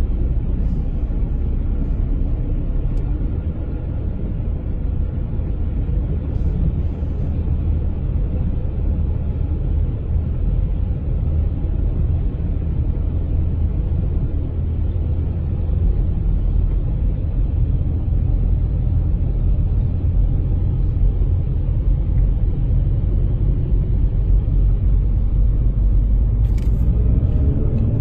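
Car driving through flood water covering the road, heard from inside the cabin as a steady low rumble of tyres and water under the car.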